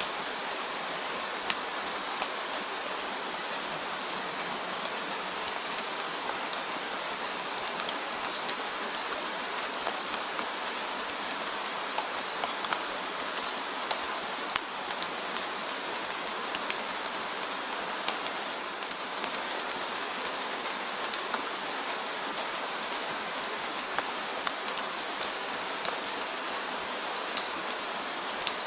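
Steady rain falling, with individual drops ticking sharply on a surface throughout.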